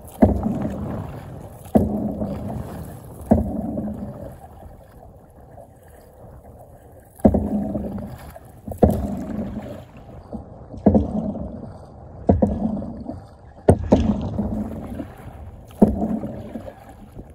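Canoe being paddled: a paddle stroke splashing through the water about every second and a half, with a pause of a few seconds near the middle.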